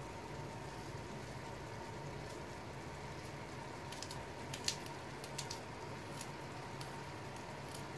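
Pot of green beans simmering on the stove: a steady low hiss and hum with scattered soft pops and clicks, the sharpest one about halfway through.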